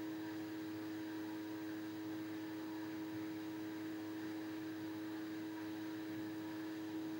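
Steady electrical hum with a faint hiss underneath, unchanging throughout: background room tone with no music or speech.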